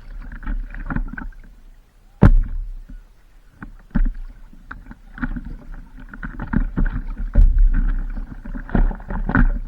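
Stand-up paddleboard paddle strokes: the blade dipping and pulling through the water with splashing, broken by sharp knocks, the loudest about two seconds in and again past seven seconds.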